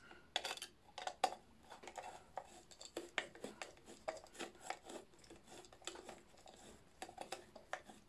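Small screwdriver driving a screw into the plastic housing of a Miele vacuum cleaner motor: quiet, irregular clicks and ticks of the tool in the screw head, several a second.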